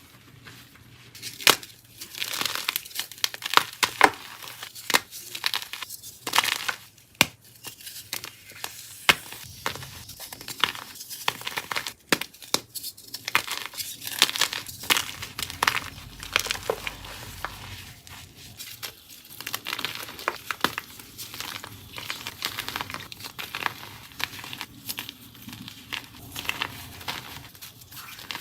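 Blocks of dyed BSN gym chalk being crushed and crumbled by hand: a dense, irregular run of crisp crackles and snaps, with louder sharp cracks scattered through it.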